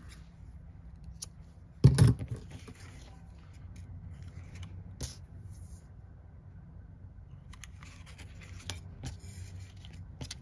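Small handling sounds at a craft desk: scissors snipping thread and light clicks of tools and paper, with one louder knock about two seconds in. A faint steady low rumble runs underneath.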